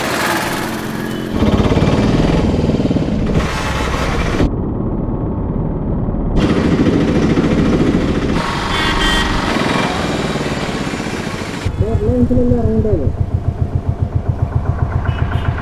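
Town street traffic: motorcycles, scooters and auto-rickshaws running and passing, heard in several short stretches that change abruptly. About twelve seconds in it gives way to a vehicle engine idling with an even throb of about four beats a second.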